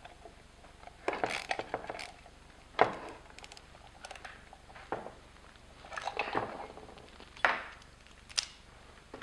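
Small metal parts, nuts and tools clicking and knocking against a metal pedal box and a wooden board while a clutch master cylinder is fitted with new lock nuts. The sound is a handful of scattered clicks, a few of them sharp.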